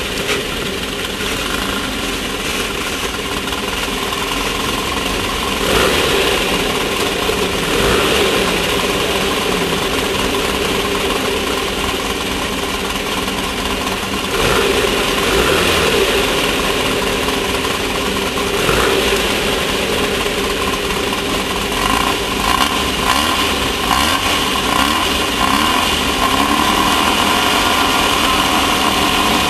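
Class 1600 off-road race car's air-cooled Volkswagen 1600 engine running hard for a long stretch, its pitch rising and falling as the revs change, under a constant noisy rush.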